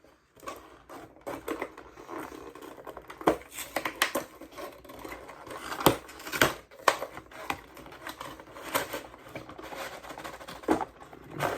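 Product packaging being ripped open and pulled apart by hand, a run of irregular crackles, snaps and rustles.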